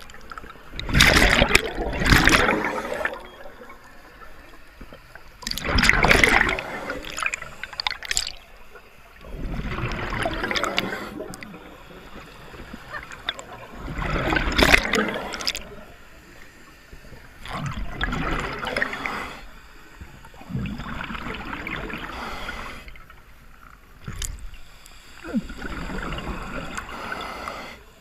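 Scuba regulator breathing underwater: surges of exhaled bubbles gurgling past the microphone about every three to four seconds, seven in all, with quieter spells between breaths.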